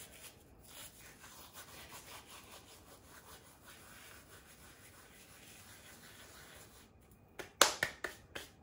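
Dried fenugreek leaves (kasoori methi) crushed and rubbed between bare palms: a faint, dry rustling. Near the end come sharp slaps, a few a second, as the palms are brushed together to knock off the last bits.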